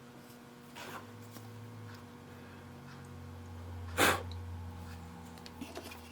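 Milling machine running with a steady low hum during a boring pass, its low tone dropping slightly about two seconds in. About four seconds in comes one short, loud burst of noise, the loudest thing heard.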